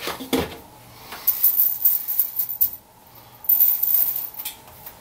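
Rifle bullets being rubbed dry in a microfiber towel: cloth rustling in two spells, with light clinks of the metal bullets against each other.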